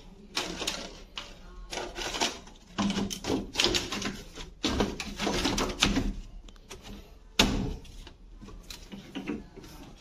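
Irregular clatter, clicks and knocks of the sheet-metal panels and parts of an opened front-load washing machine being handled, with one sharp knock about seven seconds in.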